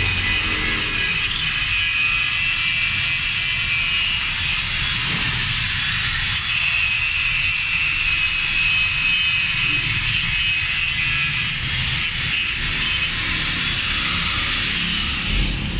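Handheld angle grinder grinding a metal pipe clamped in a vise: a steady, high grinding hiss that stops shortly before the end.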